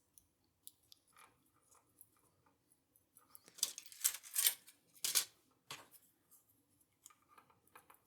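Small metal padlock parts and tools being handled: light clicks, with a louder run of metallic scraping and rattling a little past the middle.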